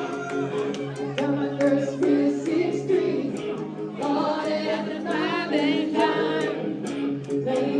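Live cover band playing, with a woman singing lead into the microphone over keyboard, guitar and a steady drum beat.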